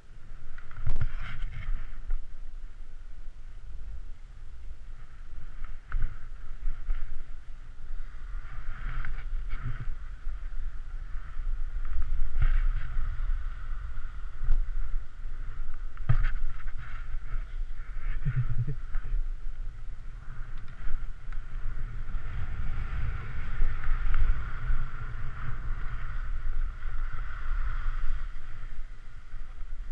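Skis sliding and scraping over groomed snow, a hiss that swells and fades with the turns, over a steady low rumble of wind buffeting the camera's microphone.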